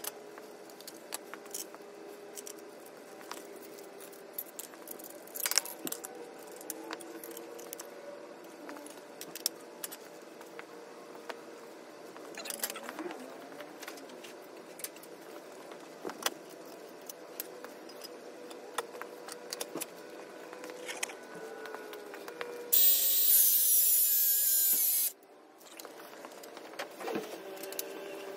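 Small metallic clinks and taps of tools and parts being handled. About 23 seconds in, a power tool makes a loud hissing cut into metal for two to three seconds and stops abruptly, then starts again near the end.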